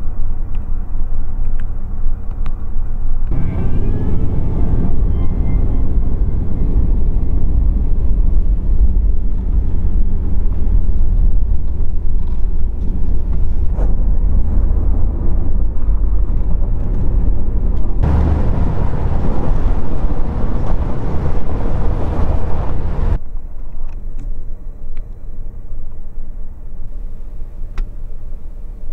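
Dodge 1500 pickup truck driving on a snowy dirt track, heard from inside the cab: a steady low rumble of engine and tyres. It gets louder a few seconds in, has a stretch of louder hiss about two-thirds of the way through, then drops much quieter for the last few seconds.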